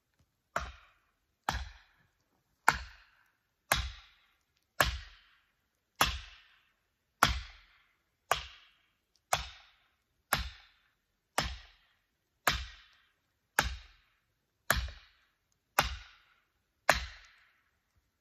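Heavy blows on wood, sixteen of them at an even pace of about one a second, each a sharp crack that dies away quickly.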